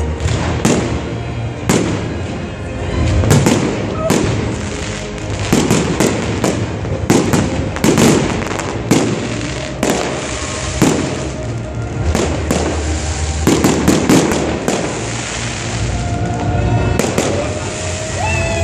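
Fireworks bursting in quick succession, a steady run of sharp bangs and crackles about one or two a second over a continuous low rumble of echoing explosions.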